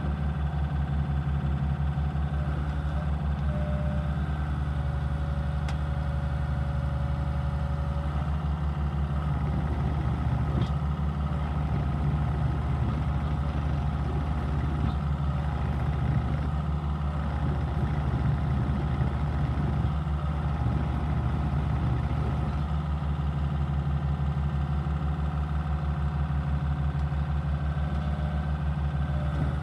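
Terex TC75 compact excavator's diesel engine running steadily at low speed. A thin whine sounds for a few seconds about four seconds in.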